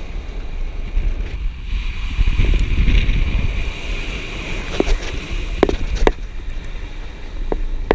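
Wind buffeting and low road rumble picked up by a camera riding on a moving vehicle in the rain. A few sharp taps come through in the second half.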